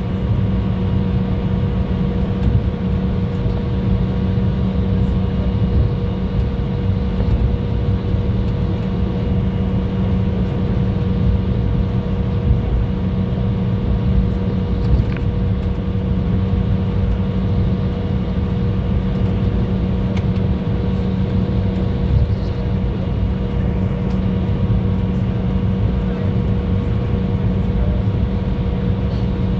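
Steady engine and cabin noise inside an airliner taxiing on the ground: an even drone with a low hum and fainter steady whines above it.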